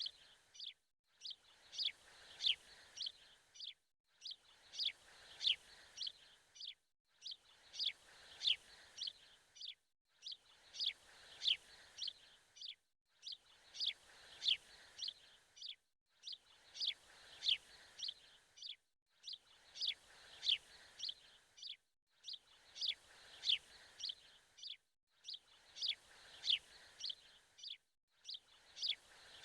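Birds chirping: quick, high chirps in a short recording that repeats as a loop about every three seconds, with a brief silent break between repeats.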